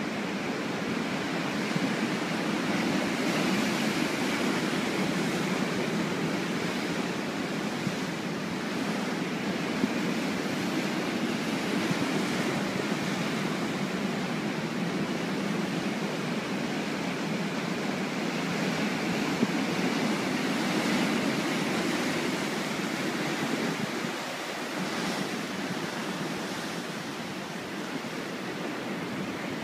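Ocean waves breaking and washing over a rocky shoreline: a continuous rushing surf that swells and eases with each set, dropping a little quieter for a few seconds near the end.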